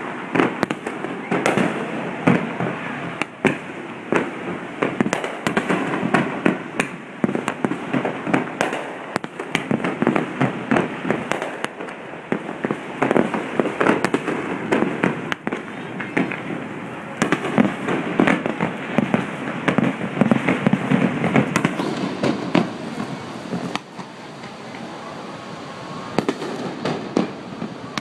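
Fireworks going off on a beach: a rapid, irregular string of sharp bangs and pops, thinning out and getting quieter near the end.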